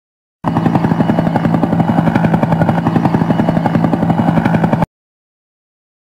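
Helicopter with its rotor beating in a fast, even pulse over a steady hum. It starts abruptly and cuts off suddenly near the end.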